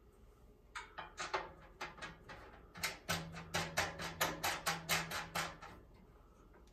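Quick metallic clicks and rattles as the electric heater's sheet-metal housing is shifted on its ceiling mounting bracket, tilted down to a new bolt hole. The clicks are scattered at first, then come about three a second for a couple of seconds before stopping.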